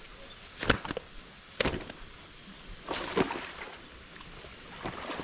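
Footsteps crunching on dry bamboo leaves and dirt: a handful of short, sharp crunches a second or so apart.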